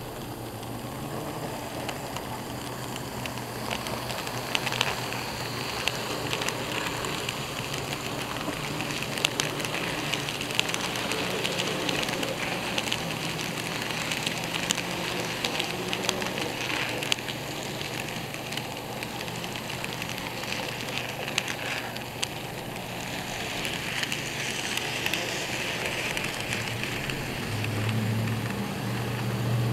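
N scale model train running past on the layout: a steady rattling whir full of small quick clicks from the wheels on the track, louder while the cars pass close by. A low hum comes in near the end.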